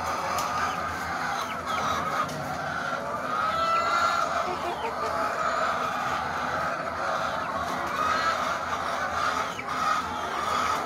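A large flock of caged laying hens clucking, many calls overlapping in a steady chorus.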